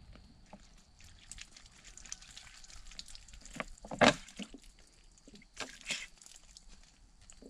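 Water from a plastic bottle trickling and dripping over hands as they are rinsed. A louder splash comes about four seconds in, and another splash near six seconds as water goes onto the face.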